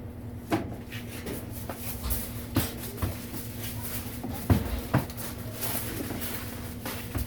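Irregular clicks and knocks of hand work at a food-prep counter, the loudest a little past halfway, over a steady low machine hum.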